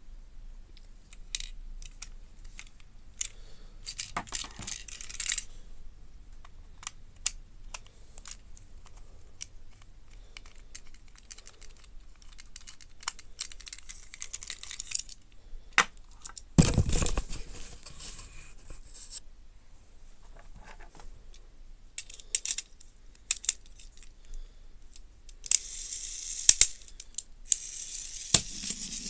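Handling noise from a plastic Plarail toy train turned over in the hands: small plastic clicks and taps, with a crinkly plastic-bag rustle at times, loudest near the end. One heavier bump comes a little past halfway.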